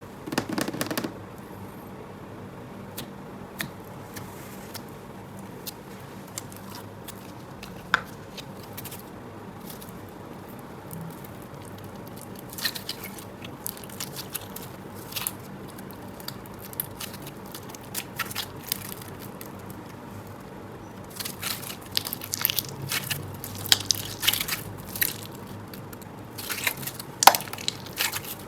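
Slime being squished and stretched by hand, giving sticky crackles and small pops over a faint steady hiss. The clicks come a few at a time at first and grow thick and fast in the last third.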